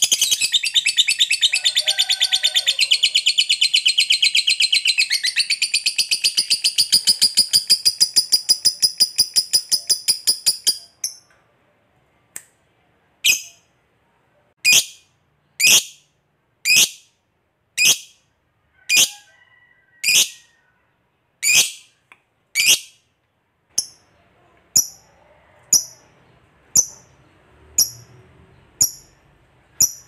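Lovebird giving a long, rapid, high-pitched chattering trill (the 'ngekek panjang'), which breaks off about a third of the way in. It is followed by single sharp, high chirps about once a second.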